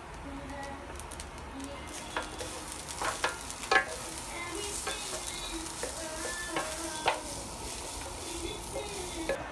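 Rice sizzling in a square nonstick pan while two wooden spatulas stir and scrape it, with several sharp knocks of wood on the pan, the loudest a little under four seconds in.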